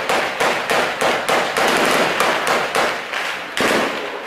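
Heavy gunfire in clashes: many rapid shots overlapping in an echoing wash, thinning out near the end.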